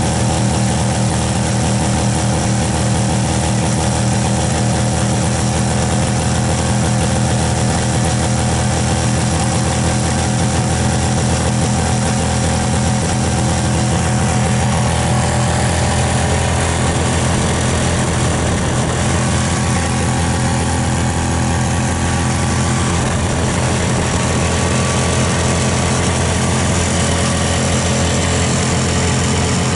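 Subaru 360's small air-cooled two-stroke twin-cylinder engine idling steadily.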